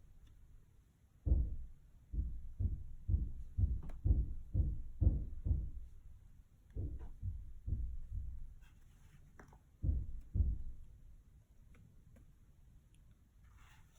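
Dull, low thumps in an irregular series, about two a second for four seconds, then a few more around seven and ten seconds in.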